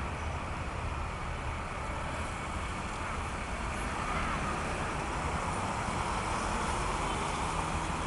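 Steady city road traffic: cars and a coach bus driving past, a little louder in the second half.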